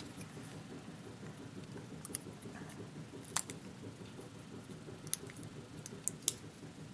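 A handful of light, sharp metallic clicks and taps from handling a pin-tumbler lock and small lock tools, spaced irregularly over a faint steady hum.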